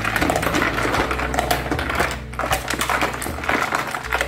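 Ice cubes clinking and rattling as they are handled and piled onto a mud crab in a plastic basin: a quick, irregular run of many small clicks.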